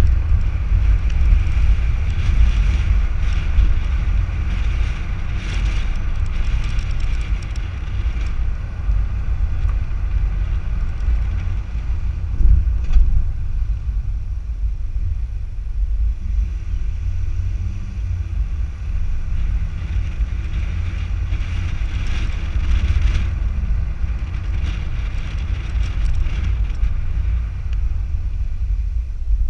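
A car driving slowly along a paved road, heard from just outside the car by its front wheel: a steady low rumble of tyres and wind buffeting the microphone, with a hiss that swells and fades.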